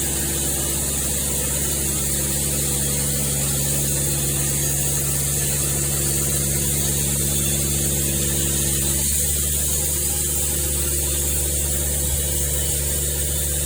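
A machine running steadily: a constant hum with several steady tones under a loud hiss, some of the tones changing about nine seconds in.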